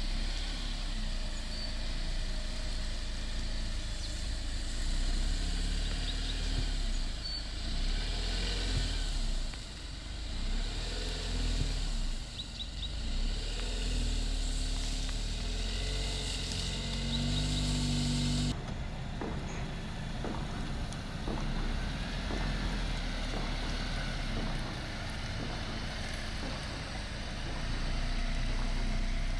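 Jeep Wrangler Rubicon's engine running under load as the SUV crawls up a steep bank off-road, the revs rising and falling. The sound changes abruptly about two-thirds of the way through.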